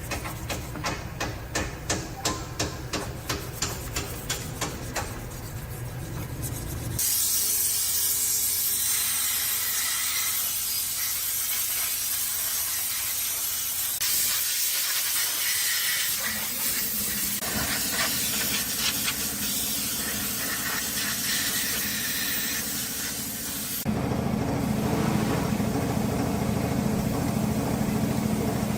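Rapid ticking, about four ticks a second, over a low hum for several seconds; then a long loud hiss; then a low steady hum like an engine running.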